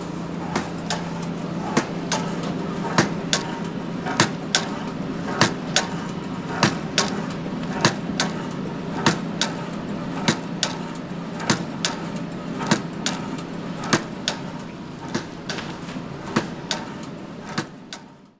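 Background music with a sharp, regular percussive beat of about 100 beats a minute over a steady low hum, fading out near the end.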